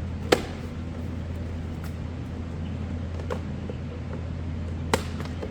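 Sharp snips from hand tools cutting a plastic mirror cap cover: a loud snap about a third of a second in, a few fainter clicks, and another loud snap near the end, over a steady low hum.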